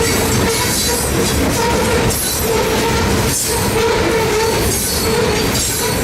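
Freight train rolling past close by, its steel wheels running on the rails with a wavering squeal that comes and goes over a steady loud rush.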